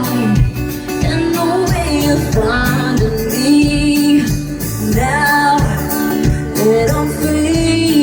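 Live pop song: a female lead vocal sung over a full band with a steady drum beat.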